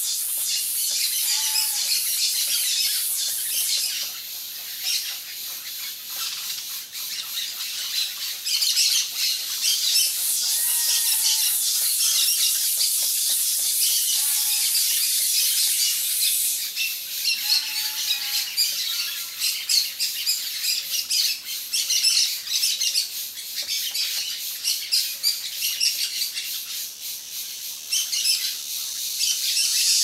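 Many small birds chirping and twittering steadily in a high register. Now and then another bird gives a short down-slurred whistled call.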